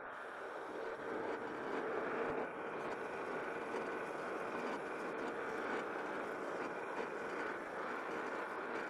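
Metal lathe spinning while a worn 1-inch drill bit in the tailstock cuts into the metal workpiece: a steady drilling and cutting noise with a constant hum. The bit cuts unevenly, one side cutting a little more than the other.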